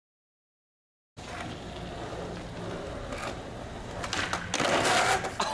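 Digital silence, then skateboard wheels rolling on a smooth concrete floor with a steady rumble from about a second in. A loud scraping crash comes a little past four seconds in as the skater falls.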